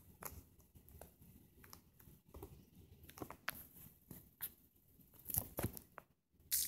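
Scattered soft clicks and rustles, handling noise around a phone being tapped and held, with a louder cluster of clicks about five seconds in.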